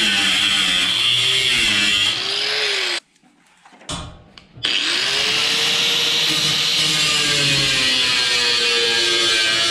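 A power tool cutting a strip of sheet metal, running steadily with a high whine. It stops briefly about three seconds in, then spins back up and carries on cutting.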